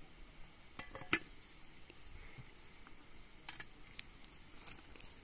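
A few light clicks and knocks over a faint background hiss, the sharpest about a second in.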